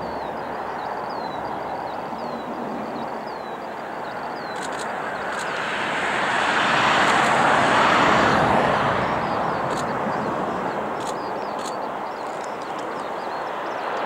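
Four-engined Airbus A340 airliner's CFM56 turbofans on landing: a steady jet roar that swells to its loudest about halfway through as the aircraft touches down and passes, then eases off during the rollout.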